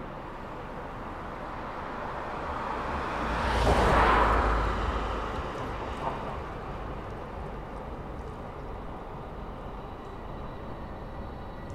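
A vehicle passing by on a city street: its noise, with a low rumble, builds to a peak about four seconds in and then fades away over steady street background noise.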